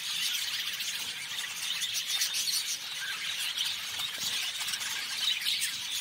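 A flock of zebra finches chattering: a steady, dense stream of short, high, nasal calls overlapping one another, which stops suddenly at the end.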